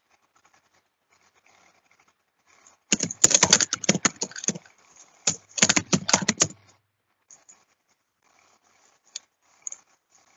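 Typing on a computer keyboard: two quick runs of keystrokes, each lasting about a second and a half, with a few single key taps afterwards.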